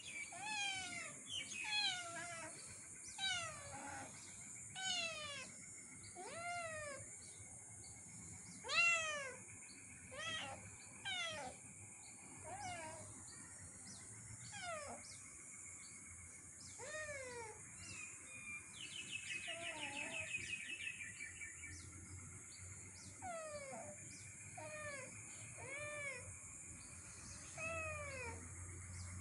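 Cats meowing over and over, a call every second or two, each rising then falling in pitch; the loudest comes about nine seconds in. A steady high-pitched drone runs underneath, and a quick chattering trill comes about twenty seconds in.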